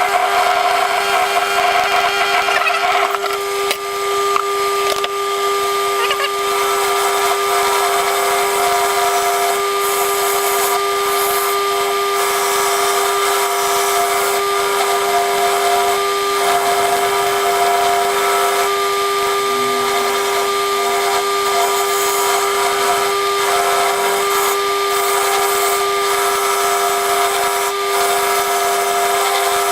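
Motor-driven wire wheel running with a steady hum, with the scratchy brushing of a breast-drill part held against it to strip off paint and rust.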